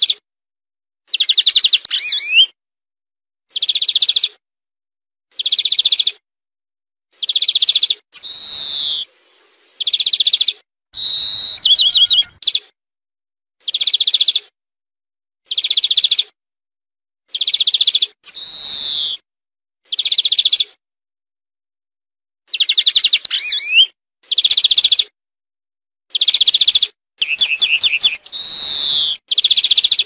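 Small songbird singing short, rapid trills of high notes about every two seconds. Some trills end in a downward-slurring note, with a longer pause partway through.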